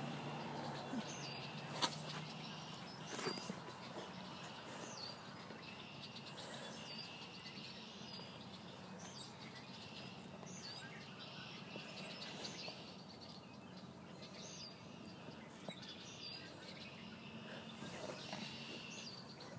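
Faint birdsong: a bird repeating short chirps every second or so, over a steady low background hum.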